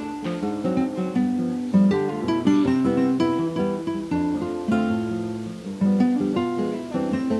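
Background music on acoustic guitar: a steady flow of plucked notes.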